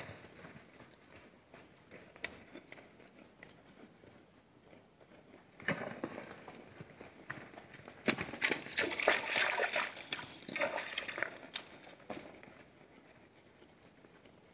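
Hartmann's mountain zebras scuffling at a waterhole: a clatter of hoof knocks on the stony ground, in a short burst about six seconds in and a denser run from about eight to eleven seconds.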